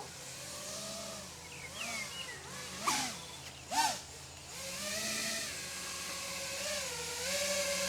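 FPV quadcopter's motors whining, the pitch rising and falling with the throttle, with two short sharp throttle bursts about three and four seconds in.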